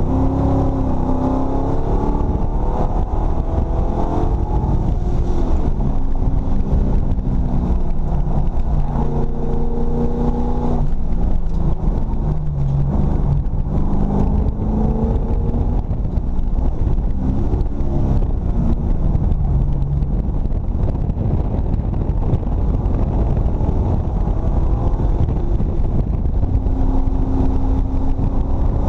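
Ford 351 Windsor V8 in a BMW E34 race car, heard from inside the stripped cabin under hard acceleration on track. The revs climb and drop several times through gear changes and braking.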